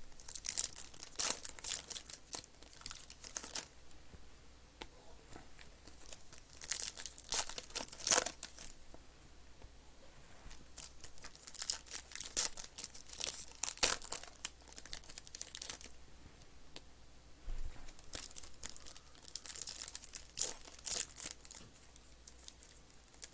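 Plastic wrapping of trading-card boxes and packs being torn open and crinkled by hand, in several spells of crackling.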